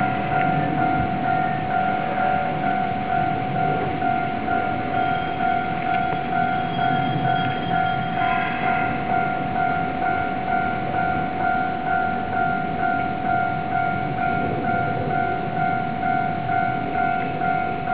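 Japanese railway level-crossing warning bell ringing, an even repeating ding at about two strikes a second, over the rumble of a Keisei Main Line train running through the crossing.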